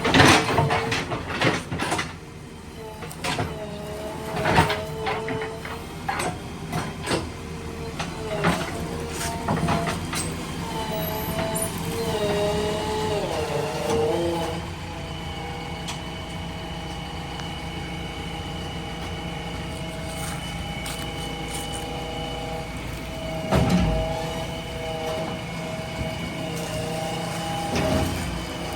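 JCB 3DX backhoe loader's diesel engine and hydraulics running steadily, with the whine wavering in pitch about halfway through as the load changes. A quick run of sharp knocks and clanks fills the first ten seconds, and two more thumps come near the end.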